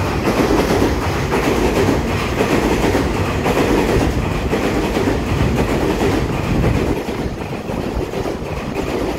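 Taiwan Railway EMU3000 electric multiple-unit train running slowly alongside the platform, a steady sound of wheels on rail that eases a little about seven seconds in.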